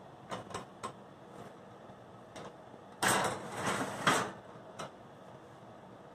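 Stainless steel kitchen tongs clicking three times, then a metal oven rack sliding in on its runners with a loud scraping rattle for about a second, starting about three seconds in, followed by a single knock.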